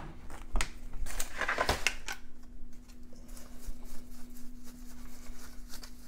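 Short clicks and brief rustling swishes from a MacBook logic board being handled and moved on a workbench, busiest in the first half, over a faint steady hum.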